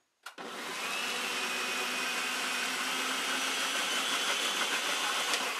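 Black & Decker Power Pro food processor switched on with a click, its motor running steadily with a whine as the blade grinds blueberries, then starting to spin down near the end.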